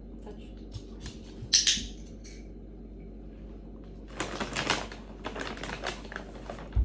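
A dog-training clicker gives one sharp click about a second and a half in. A run of light clicks and taps follows later, and a low thump comes at the very end.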